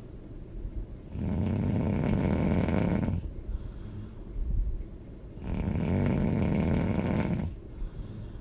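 A person snoring loudly: two long, rasping snores about two seconds each and roughly four seconds apart, with quieter breathing between them.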